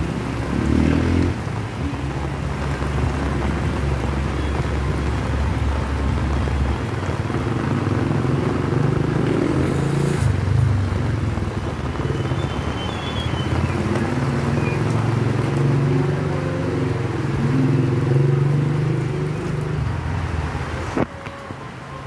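Motorcycle tricycle engines running close by, a low steady rumble over the hiss of heavy rain; the engine noise cuts off abruptly about a second before the end.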